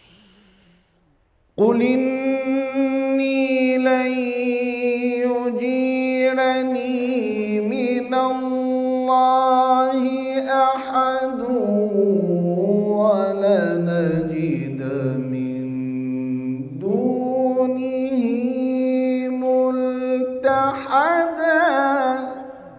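A man reciting the Quran in a slow, melodic tajweed style, holding one long ornamented phrase. It enters sharply about a second and a half in, sinks to a low pitch past the middle, climbs back up and trails off near the end.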